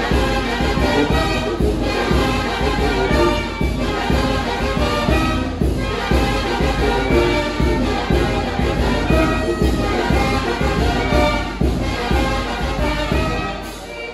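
Brass band playing music for a traditional dance, many pitched wind parts over a steady drum beat.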